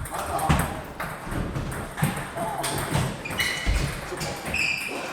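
Table tennis ball knocks against table and paddles at irregular intervals, with faint voices in the hall.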